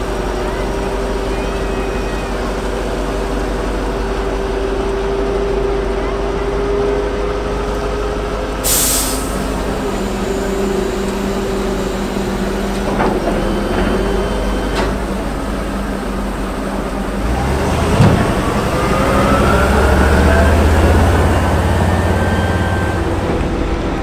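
Engine of a heavy amphibious bridging vehicle running steadily, with a short sharp air-brake hiss about nine seconds in. Later there is a knock, then the engine revs up, rising in pitch as the vehicle pulls away.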